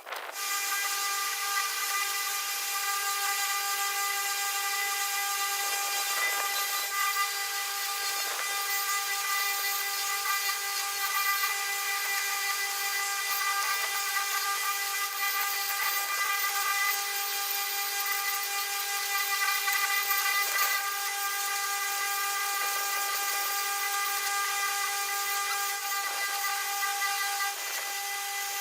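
A power tool running steadily with a high, even whine, with no break and only slight changes in load.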